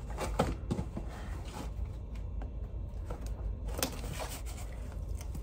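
Cardboard shipping box being handled and opened: rustling and scraping of cardboard and packing, with a few sharp clicks.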